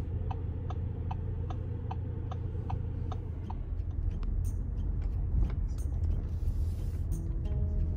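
Car cabin road rumble while driving, with a turn-signal indicator ticking evenly, about three clicks a second, stopping about three and a half seconds in.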